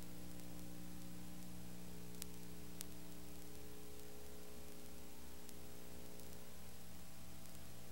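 Steady electrical hum with several evenly spaced overtones under a constant hiss, the background noise of an old videotape soundtrack. Two faint ticks come a little over two seconds in and again about half a second later.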